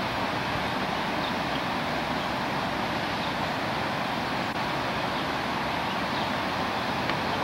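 Steady rushing noise of the flooded Skunk River's fast current, an even hiss that holds the same level throughout.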